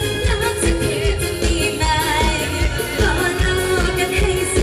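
Live Isan mor lam pop band playing with a woman singing the lead melody over a steady drum beat.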